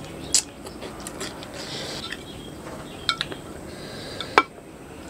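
Tableware clinking: chopsticks, a fork and a ceramic plate knocking together as the plate is handled. There is one sharp clink about half a second in, a quick pair around three seconds, and the loudest near the end.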